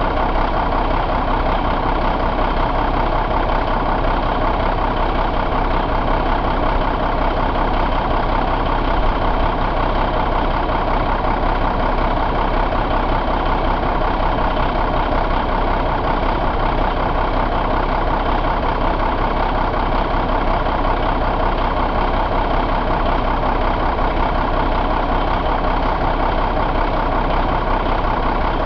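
2013 Paccar MX13 12.9-litre inline-six diesel engine idling steadily, heard up close in the open engine bay.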